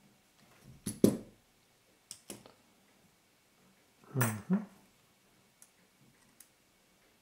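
Small metal clicks and clinks from a precision screwdriver and the lens's metal barrel parts being handled while tiny screws are taken out. The loudest click comes about a second in, and a longer clatter comes around four seconds in.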